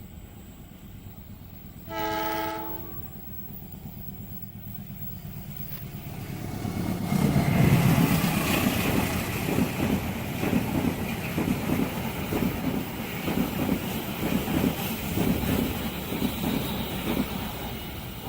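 A train horn sounds one short blast about two seconds in. A few seconds later a train arrives and passes, its wheels clattering over the rail joints in a steady rhythm.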